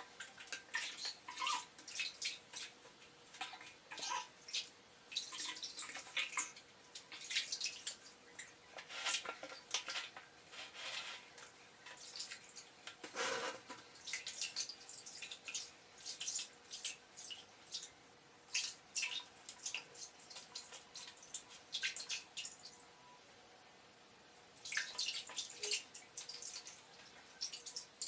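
Water splashing and pouring in short, irregular bursts while a kitten is bathed, the sound sped up to four times speed.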